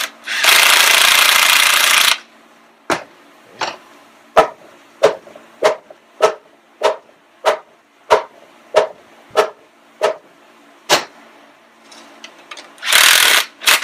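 A cordless power tool runs for about two seconds, snugging down the turbocharger's clamp. Then a mallet taps on the clamp about a dozen times, one even knock every half second or so, to seat it. The power tool runs again briefly near the end.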